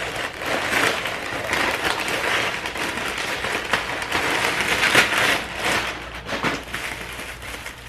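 Plastic wrapping on a pack of bubble mailers crinkling and rustling as it is handled, with a few louder crinkles, one about five seconds in.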